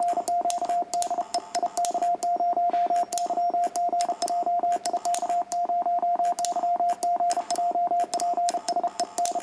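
Fast Morse code keyed on an N2DAN Mercury paddle set up as a single-lever key: a steady-pitched sidetone beeping in quick dots and dashes, with a sharp click on each element.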